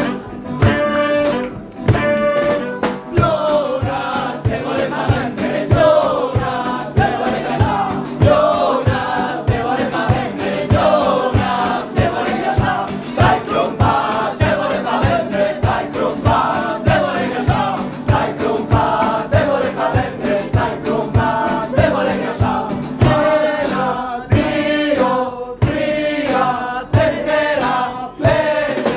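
Live band music: saxophones play held notes for the first couple of seconds, then several men sing together over a steady beat.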